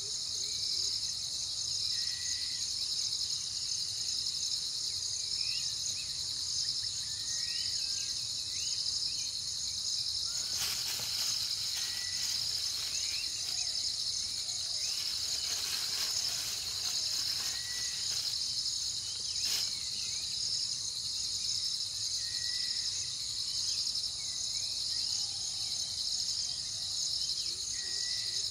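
Steady, high-pitched chorus of insects shrilling, with short chirps recurring every couple of seconds and a few sharp clicks in the middle.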